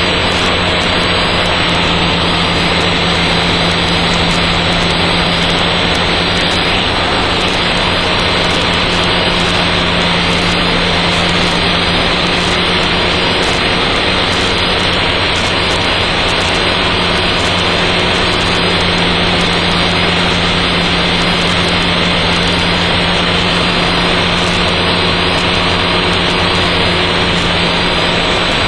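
Steady in-flight drone of a Dyke Delta's Mazda rotary engine and propeller, with airflow noise, heard through the aircraft's intercom, which makes it sound thin and band-limited. A low hum runs under an even rush of noise.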